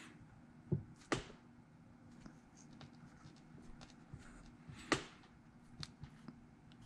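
Light clicks and taps of fingers pressing a greased clutch pushrod seal into a Suzuki SV650's engine case by hand: two sharp clicks about a second in, the loudest near five seconds, and a few fainter ticks after.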